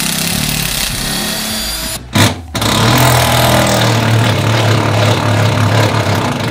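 Cordless drill spinning a socket to back out a school-bus seat-mount bolt, run in bursts: about two seconds, a short stop and a brief blip, then a steady run of about four seconds.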